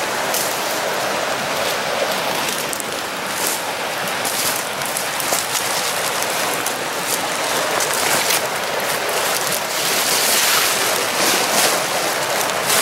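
Steady rushing of a flowing creek, with crackling of dry leaves and brush underfoot.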